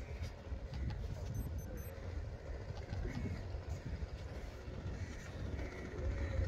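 Low rumble of a small boat's Yanmar three-cylinder diesel engine running under way as the boat approaches, growing a little louder near the end.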